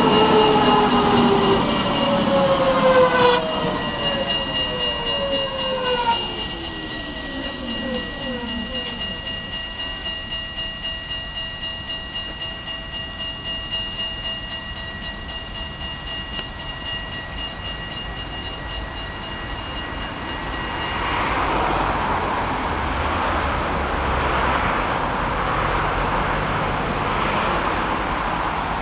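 Electric tram slowing down, its motors whining downward in pitch over the first several seconds. A steady high two-tone signal with fast ticking then sounds until about two-thirds of the way through, when a louder rumble of passing traffic takes over.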